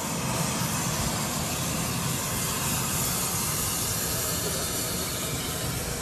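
A steady rushing, hissing noise with a low rumble underneath, unchanging throughout.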